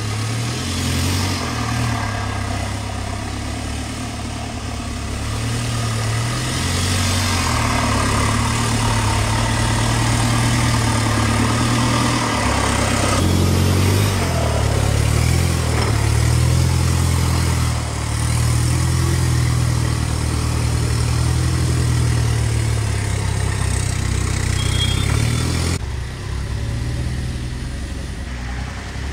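Off-road 4x4's engine running at low revs, its pitch rising and falling with the throttle.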